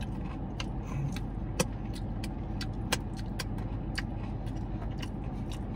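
Chewing and wet mouth smacks while eating fried chicken tenders, heard as a string of short sharp clicks over the steady low hum of an idling car.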